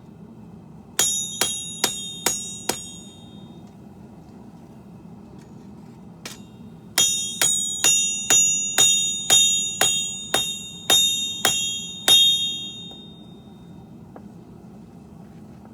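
Forging hammer striking hot steel on an anvil in two runs of about two blows a second, five blows then about eleven, each with a high bell-like ring, the last ringing out for about a second. Under it runs the steady hiss of a propane forge.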